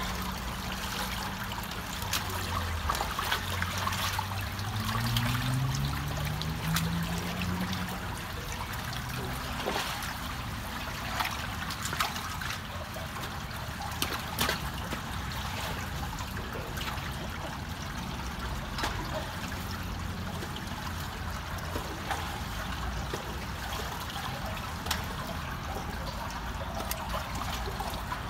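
Water trickling and gurgling through a clogged culvert inlet, with scattered splashes and clicks as gloved hands dig sticks and muck out of the water. A low drone rises in pitch during the first several seconds.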